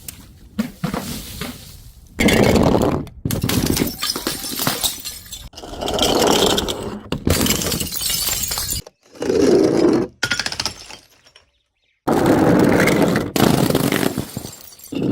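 Glass bottles breaking and shattering: a series of loud crashes with crunching and scraping of broken glass between them. The sound cuts to dead silence twice, briefly.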